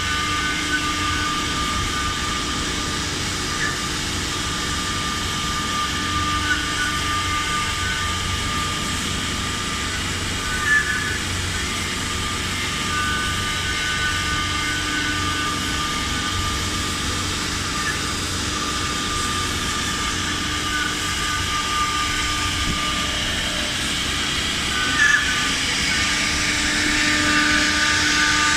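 Swing-head 4-axis CNC router running, a steady machine hum with its spindle's whine, growing louder near the end.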